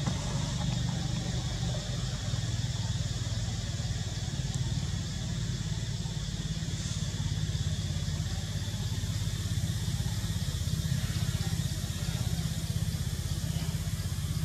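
Steady low drone of an idling engine, running evenly without change.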